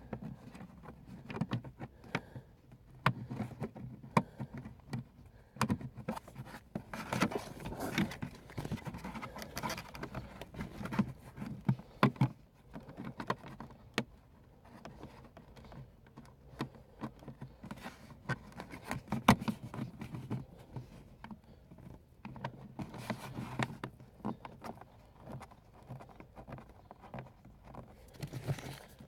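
Irregular clicks, taps and scrapes of hands working plastic car interior trim and small screws.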